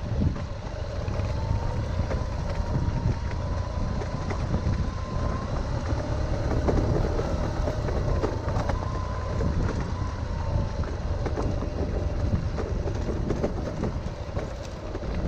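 Motorbike engine running steadily, a continuous low rumble with a faintly wavering higher tone.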